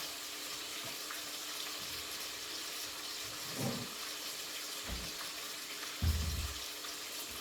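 Chicken strips frying in hot grease, a steady sizzle, with a short knock about five seconds in and a louder dull thump soon after.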